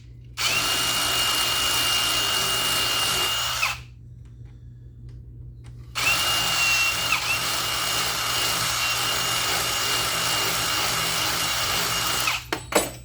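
Electric hand drill running in two long bursts with a steady whine, its bit wallowing out a hole in a car panel. The pitch dips briefly early in the second burst, and a few short clicks follow near the end.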